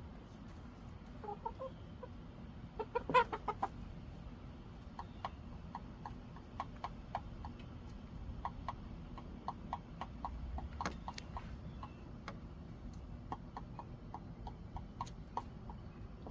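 Backyard chickens clucking in short, repeated notes, with a louder, fuller call about three seconds in.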